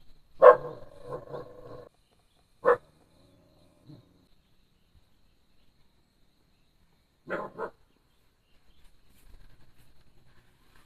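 A dog barking in separate bursts: a longer run of barks about half a second in, a single sharp bark a little later, then two quick barks past the seven-second mark.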